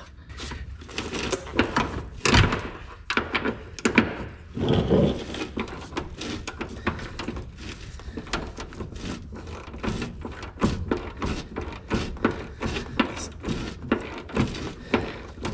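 Irregular metal knocks, clicks and clanks of hand tools worked against a seized rear subframe bolt on a Pontiac Fiero. The bolt is stuck in its bushing.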